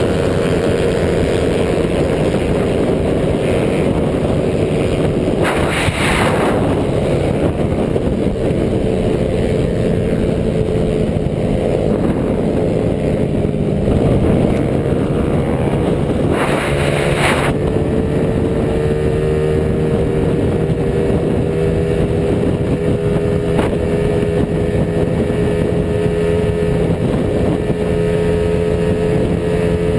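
Small motorcycle engine running at a steady cruising speed, recorded onboard with wind rushing past the microphone; its pitch climbs slowly in the second half. Two brief louder rushes of noise come about six and seventeen seconds in.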